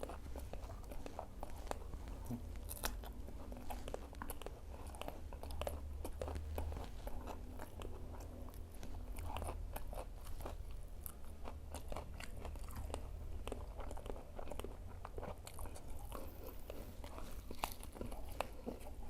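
A person chewing crunchy fried bakwan (vegetable fritter) close to the microphone: continuous wet chewing with many small crisp crackles and bites. A steady low hum runs underneath.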